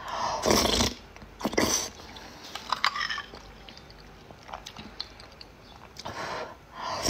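Close-up slurping of a gooey, jelly-like dessert sucked off a spoon: about four loud slurps, near the start, around a second and a half in, about three seconds in and near the end, with quieter mouth noises between.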